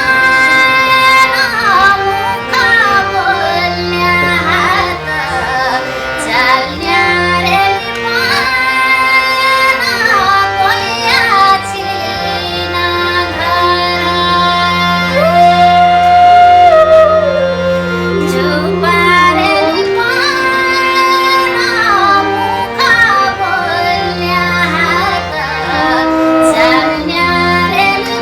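Nepali folk-song music: a high, ornamented, bending melody line over sustained low accompanying notes.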